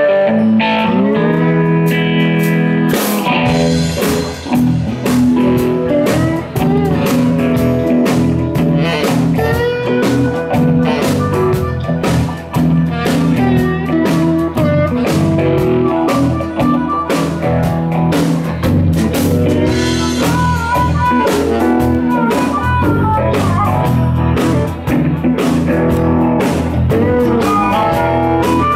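Live blues-rock band playing through amplifiers: electric guitars over a strummed acoustic guitar with drums, and a harmonica joining in near the end.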